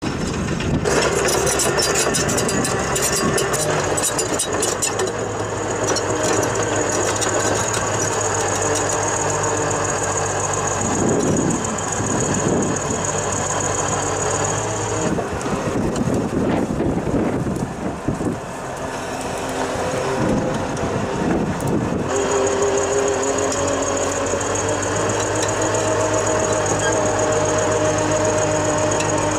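Diesel engine of a tracked drain-pipe laying trencher running steadily under load, with a high thin whine over it. The whine fades out about halfway through and returns a few seconds later, while a few louder swells of noise come and go.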